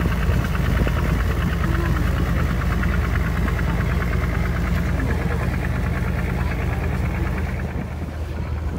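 Passenger boat's engine running steadily, a deep hum with a fast, even knocking beat, easing slightly near the end.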